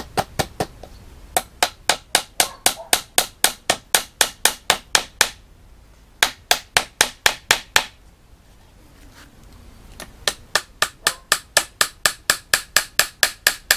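Small hammer driving thin nails into a wooden frame strip: quick, sharp taps, about four a second, in three runs with short pauses between. A few lighter taps come first.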